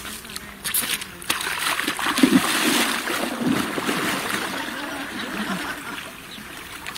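A man wading fast into a shallow muddy creek, water splashing and churning around his legs and body. It starts a little over a second in, is loudest a couple of seconds later, and eases as he gets chest-deep.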